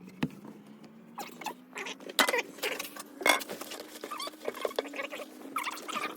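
Small irregular clicks, taps and scrapes of hands working loose drain-pipe parts under a kitchen sink, over a faint steady hum.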